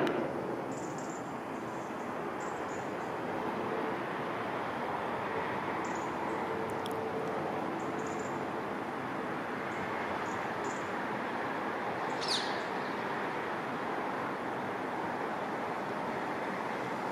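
Steady outdoor airport background noise, with small birds chirping faintly now and then and one clearer downward chirp about twelve seconds in.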